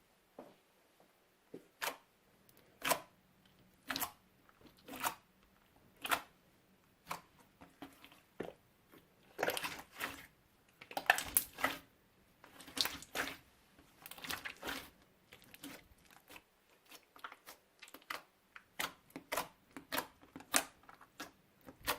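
Slime being squeezed and pressed by hand, giving short sticky crackles and pops. They come about one a second at first, bunch into denser, louder crackling clusters in the middle, and turn to quicker, lighter clicks near the end.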